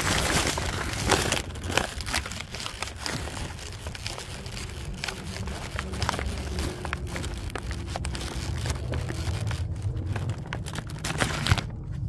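Crinkling and rustling handling noise made of many irregular crackles, busiest in the first couple of seconds and again near the end, over a steady low rumble.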